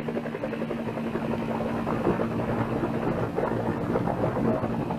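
Steady whirring drone of an aircraft engine, with a constant low hum under it, growing slightly louder about two seconds in.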